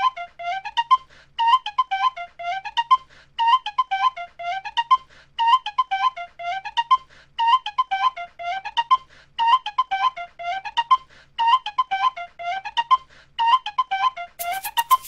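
Background music: a short, high flute-like melody of quick notes, looping about every two seconds. A fast ticking beat joins near the end.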